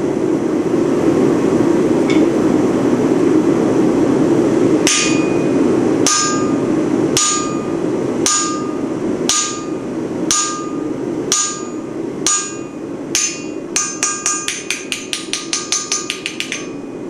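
Blacksmith's hammer striking hot steel on an anvil, each blow ringing: single blows about once a second, then a quick run of light rapid taps. A steady low rushing noise runs underneath and is all there is for the first few seconds.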